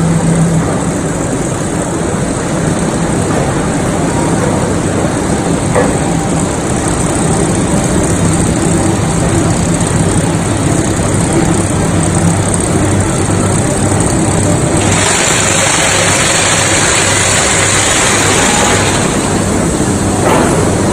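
Steel rolling mill machinery running steadily: a loud, continuous mechanical din with a low hum from the roller tables and conveyors. A hiss rises over it for a few seconds about three-quarters of the way through.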